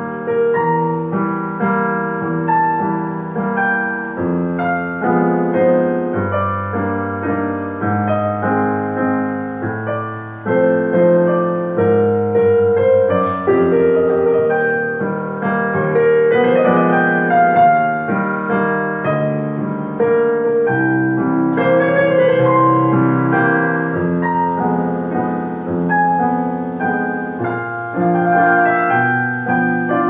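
Dexibell VIVO H3 digital piano playing its modelled acoustic piano sound through its own built-in speakers: continuous two-handed playing, a melody over chords and held bass notes.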